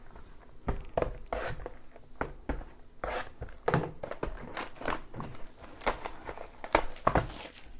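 Trading card box packaging being handled and opened: irregular crinkling, tearing and rustling of plastic wrap and cardboard, with scattered light taps.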